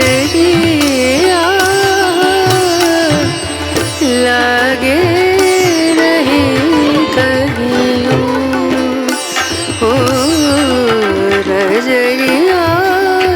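Background music from a Hindi film-style song: a wavering, ornamented melodic line over plucked-string accompaniment.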